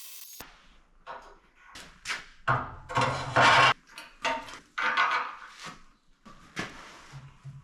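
A steady machine sound cuts off just after the start. Then come irregular metal clanks, knocks and scrapes of steel parts being handled and fitted by hand.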